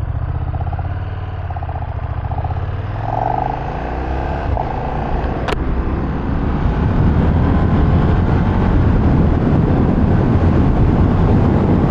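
KTM 1390 Super Duke R's V-twin engine running as the motorcycle pulls away and gets under way. The engine sound climbs and grows steadily louder. A single sharp click comes about five and a half seconds in.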